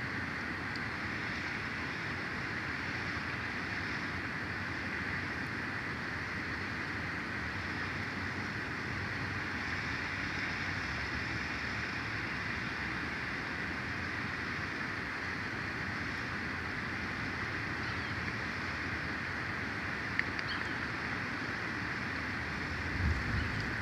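Steady outdoor hiss of wind through the nest tree and across the microphone, with a faint click about 20 seconds in and a short low thump near the end.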